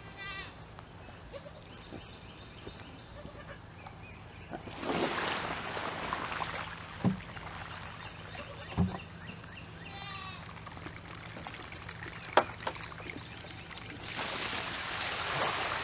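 Dirty water being dumped out of animal drinking buckets onto the ground, splashing twice, with a few hollow knocks of the buckets being handled in between. Bleating from livestock comes in near the start and again in the middle.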